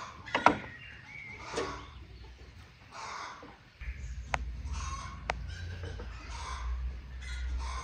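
Chickens and other birds calling in the background, several short calls in the first few seconds. From about four seconds in a steady low rumble sets in, with two sharp clicks about a second apart.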